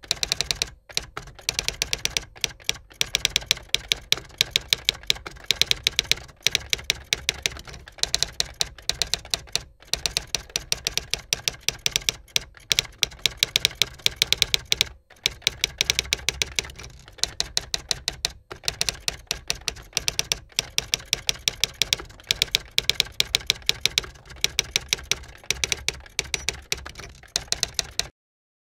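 Typewriter keys clacking in fast runs of many strokes a second, broken by short pauses, stopping abruptly just before the end.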